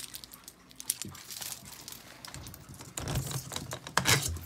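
Irregular light clicks, taps and rustling of hands at work, as a bearded dragon's enclosure is opened and reached into.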